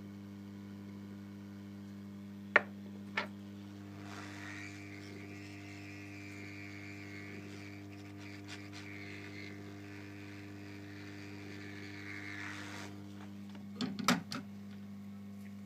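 Steady electrical hum throughout, with two sharp clicks about two and a half and three seconds in. From about four seconds to nearly thirteen seconds a steady airy hiss, a hot-air rework station blowing on the circuit board to reflow the solder under a small digital microphone. A short clatter of small metal clicks comes near the end.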